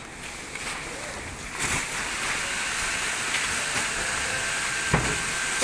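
Heavy sacks of palay being handled and set down on a platform scale, with thuds and one sharp knock about five seconds in, over a steady hiss that comes in about a second and a half in.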